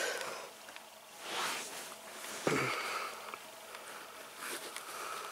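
Dog gnawing on a canvas sneaker: quiet, irregular chewing and mouthing noises mixed with a few soft breaths and sniffs through the nose.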